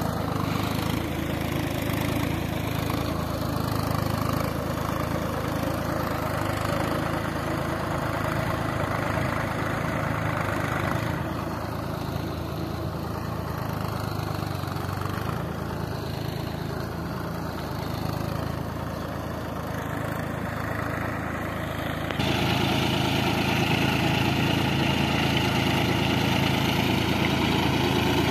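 Mahindra tractor's diesel engine running steadily under load, with a sudden step louder about three-quarters of the way through.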